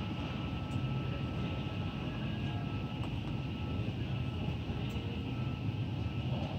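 Steady low mechanical hum of a big-box store's building machinery, such as ventilation and refrigeration, with a faint high steady tone over it.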